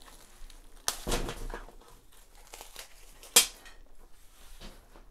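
Plastic protective wrapping crinkling and tearing as it is pulled off a leather handbag's straps, with a few sharp snaps, the loudest about three and a half seconds in.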